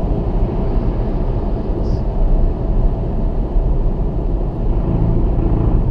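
Steady road noise of a Toyota Auris at motorway speed, heard from inside the cabin: an even rumble of tyres and engine.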